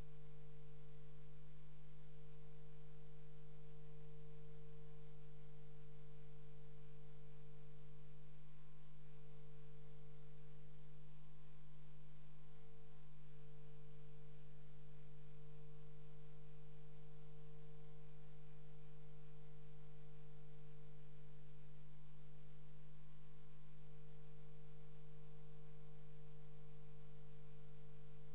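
Steady electrical hum: a constant low buzz with a higher overtone that never changes, and no other sound.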